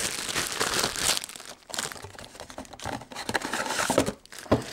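Clear plastic bag crinkling and rustling irregularly as it is handled and pulled about.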